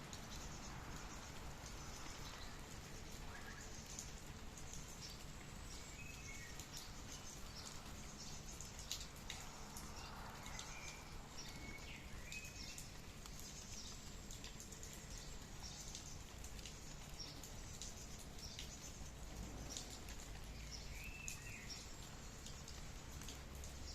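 Light rain, with many individual drops pattering and dripping over a soft steady hiss. A bird gives a few short chirps, scattered through the rain.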